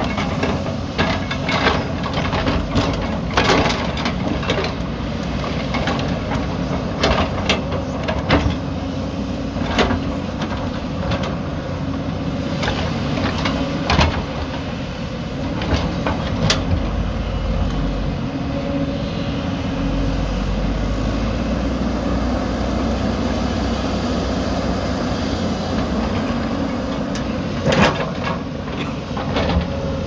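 Hyundai 220 crawler excavator's diesel engine running steadily as the machine digs, with repeated clanks and knocks of the steel bucket against rock and stones. Most of the clanks come in the first ten seconds, with a loud one near the end.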